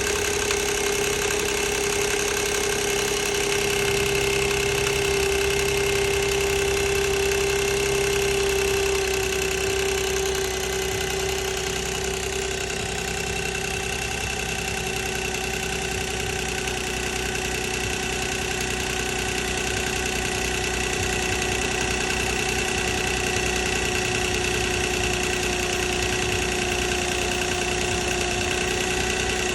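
2006 Nissan Maxima's 3.5-litre V6 idling steadily, with the rattle and whine of a worn timing chain. The level drops slightly about ten seconds in.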